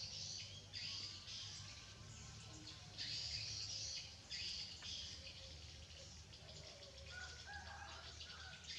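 Small birds chirping in quick, repeated bursts over a faint steady low hum.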